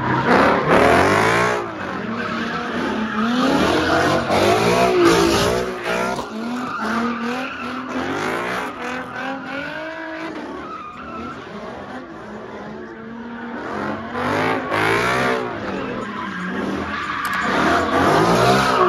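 A car doing donuts, its engine revving up and down over and over while the tyres squeal. It is loudest at the start and again over the last few seconds.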